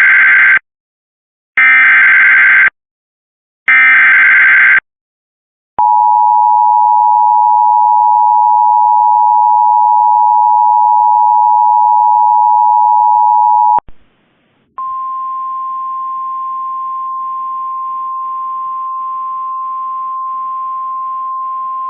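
Emergency Alert System tones: three bursts of SAME header data, a harsh digital warble about a second each, then the steady two-tone EAS attention signal held for about eight seconds. It cuts off, and after a pause of about a second a single steady NOAA Weather Radio 1050 Hz warning alarm tone begins and holds.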